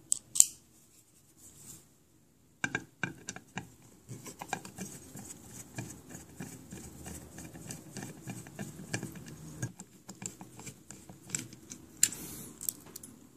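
Torx T7 screwdriver turning out the small screws of a hard drive's platter clamp ring: a run of light metal scratches and small clicks, with a few sharper clicks near the end.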